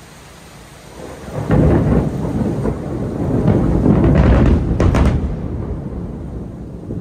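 A loud thunderclap from a nearby lightning strike over a steady hiss. About a second in it breaks into a heavy rumble with sharp crackles, then rolls away over the last couple of seconds.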